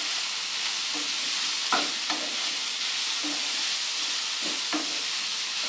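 Chicken mince with sliced onion, carrot and capsicum sizzling steadily in hot oil in a nonstick frying pan, stirred with a wooden spatula that scrapes and knocks against the pan a few times.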